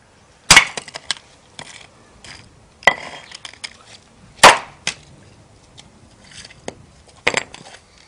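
Hammer blows smashing a fire-melted Sony Ericsson mobile phone lying on a concrete paving brick: four sharp cracks a second or two apart, each followed by small clatters of breaking plastic.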